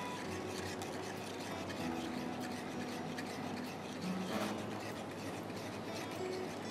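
Wire whisk stirring a cornflour custard in a pan: a steady scratchy rasp with small clicks against the pan, whisked until the cornflour thickens it.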